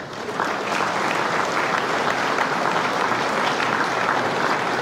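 A large seated audience applauding, with steady clapping that starts just as the announcer's call ends.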